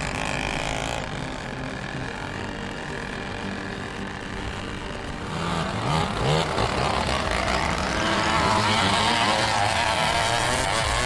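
Heavy logging truck's diesel engine working under load, growing louder about halfway through with brief rises in pitch as it revs.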